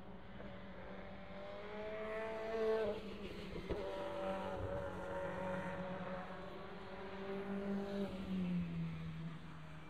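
A SEAT León WTCC touring car passes at racing speed, its engine note climbing and then dropping sharply at an upshift about three seconds in, the loudest moment. The note then climbs again as the car accelerates away, with another drop near the end. A steady drone of other race engines around the circuit runs underneath.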